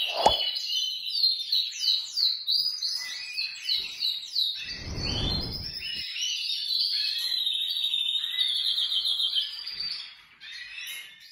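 Several caged domestic canaries singing at once, coming back into song: long, continuous songs of fast trills and rapidly repeated notes that fade near the end. A sharp knock comes about a quarter second in, and a low rumble runs for about a second and a half midway.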